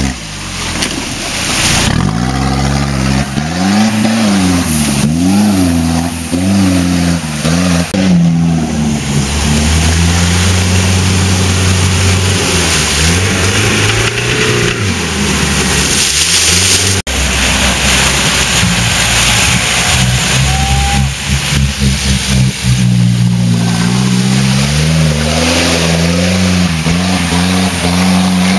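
Off-road 4x4 engines revving hard while driving through a mud pit, the engine pitch rising and falling again and again as the throttle is worked, over a steady hiss of spray and noise; there is an abrupt cut partway through.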